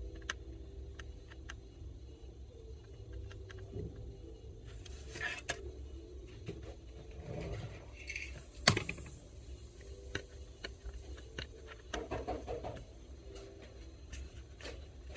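Small clicks, taps and scrapes from handling a small electronic device's parts and tools on a hard work surface, with short rustling spells and one sharp click a little past halfway. A faint low hum runs underneath.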